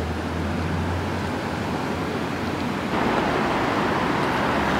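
Steady outdoor city ambience at night: an even rush of distant traffic noise, with a low hum in the first second and the rush growing louder about three seconds in.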